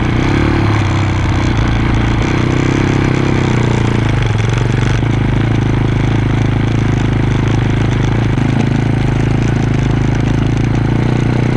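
Daytona 150cc pitbike's single-cylinder four-stroke engine running at a steady speed while riding up a gravel track, heard close up from a GoPro mounted on the bike. Its pitch shifts slightly about four seconds in.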